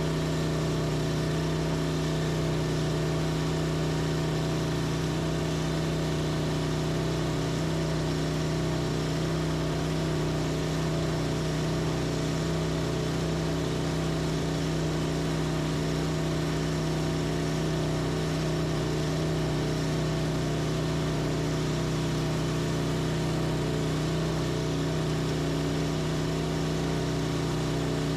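Portable sawmill's engine running steadily at a constant speed, with an even drone that does not change.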